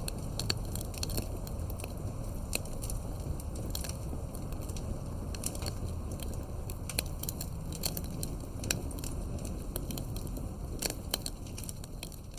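Wood campfire crackling: irregular sharp pops, several a second, over the steady low rumble of the flames.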